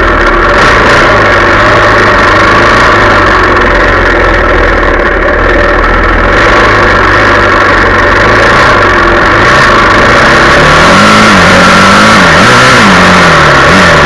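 Yamaha 400 dirt bike engine running loud while the bike is ridden, its pitch swinging up and down several times in the last few seconds as the throttle is worked.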